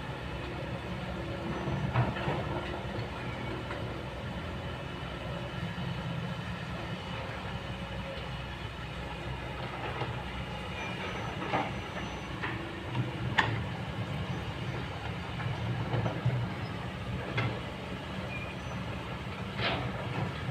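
Kobelco excavator's diesel engine running steadily under load, with several sharp clanks scattered through, as of the steel bucket knocking against rocks while the boom swings and digs.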